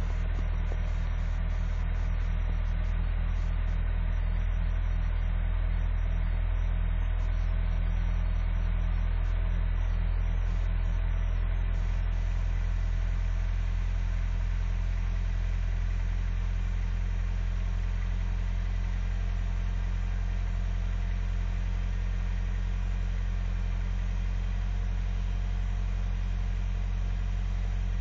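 Vehicle engine idling steadily after a cold start at eight below zero.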